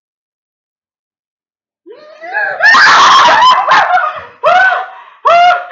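Girls' high-pitched shrieks mixed with laughter, starting about two seconds in: one long, very loud burst, then two shorter shrieks, a reaction to biting into a chili pepper.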